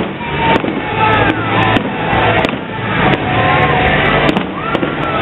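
Fireworks display going off, a sharp bang every half second to a second over a steady rumble, with music playing underneath.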